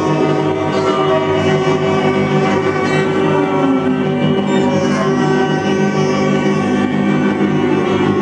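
Live experimental ensemble of prepared guitar and saxophones playing a loud, dense drone of many layered held tones that barely change.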